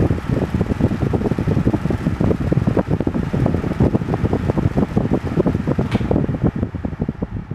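Pedestal fan with a metal grille running, its moving air making a dense, rapid low flutter. A single sharp click comes about six seconds in, after which the hiss thins.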